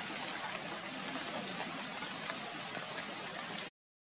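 Steady rain falling, an even hiss with a few faint drip ticks, cutting off abruptly near the end.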